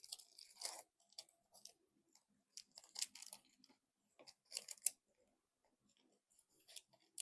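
A small card-pack wrapper crinkling and tearing in short, scattered crackles as it is opened by hand.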